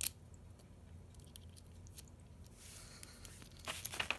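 A homemade rake pick scraping and clicking in the keyway of a Master Lock 141D padlock, working the pins against tension-wrench pressure. A sharp click at the start, scattered light ticks, a short scrape about two and a half seconds in, and a run of clicks near the end.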